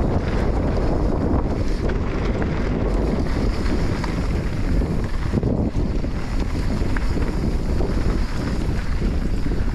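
Steady wind rush on the microphone of a camera riding on a moving enduro motorcycle, with the bike's running noise beneath it.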